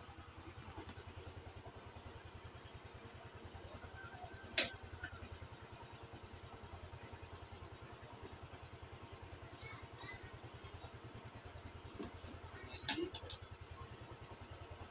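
Sharp metal clicks and clinks from hand tools and parts during scooter repair: one loud click about four and a half seconds in and a quick cluster of clicks near the end. Under them runs a steady low hum with a fast, even pulse.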